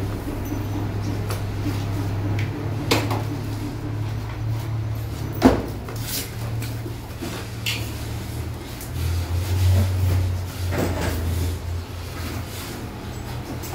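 A plastic hand shower and its hose being handled and fitted to a chrome wall valve: a few scattered knocks and clicks of plastic against the fittings and tile, the sharpest about five and a half seconds in, over a steady low hum.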